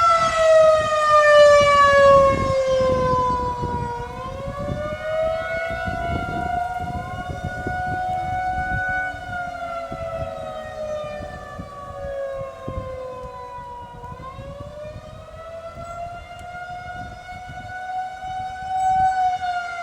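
Outdoor tornado warning siren wailing, its pitch sliding slowly down and back up in long sweeps several seconds each, sounding a tornado warning. Wind buffets the microphone underneath, heaviest in the first few seconds.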